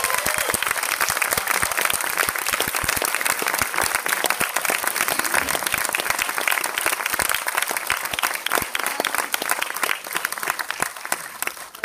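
A theater audience applauding a guest's introduction, dense and steady, dying away near the end.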